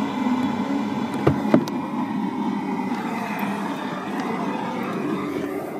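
A car running, heard from inside the cabin as a steady rumble, with two sharp clicks about a second and a half in.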